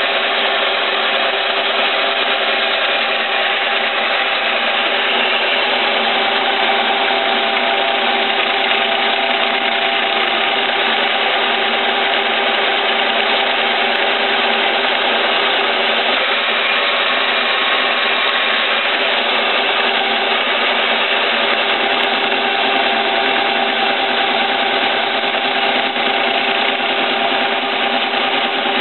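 Milling machine running steadily, its cutter machining welded metal at an even, unchanging pitch.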